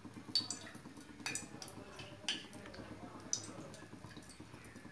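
A steel spoon clinking against metal cooking pots as oil is scooped from a kadai into a pot, with light clinks about a second apart.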